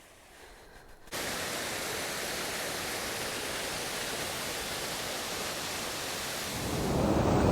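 Steady rushing noise that starts abruptly about a second in and grows louder and deeper near the end.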